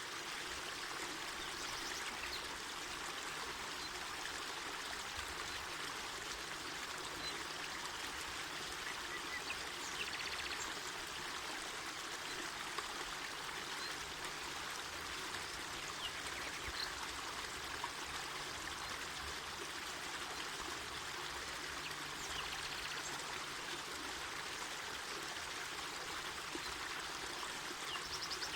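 Mountain forest river flowing: a steady rush of running water.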